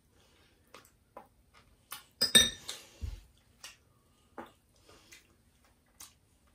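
Tableware clinking and tapping as a meal is eaten: scattered light taps of cutlery on dishes, the loudest a sharp clink with a brief ring about two seconds in.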